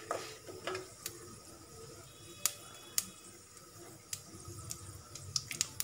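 Slotted steel spoon scraping and tapping against an aluminium kadai as chana dal and urad dal are stirred while roasting in oil: faint, scattered clicks.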